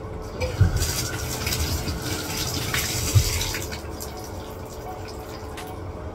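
Bathtub faucet running into a plastic bottle for about three seconds, filling it, then shut off. A low knock comes as the water starts and another as it stops.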